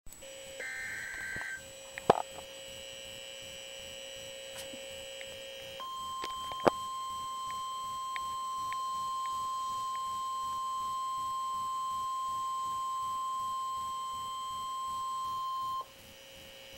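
NOAA Weather Radio emergency alert for a flood warning: a brief burst of SAME digital header tones near the start, then the steady 1050 Hz warning alarm tone. The alarm tone starts about six seconds in, holds for ten seconds and cuts off suddenly. Two sharp clicks sound, one about two seconds in and one just after the alarm tone starts.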